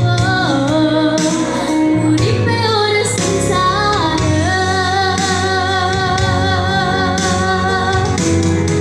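A young girl sings an Indonesian regional song into a microphone over instrumental accompaniment. About four seconds in she holds a long note with vibrato.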